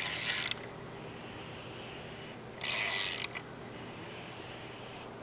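Hand ratchet turning the crankshaft of an assembled LS short block over, giving two short bursts of rapid ratchet clicking about two and a half seconds apart.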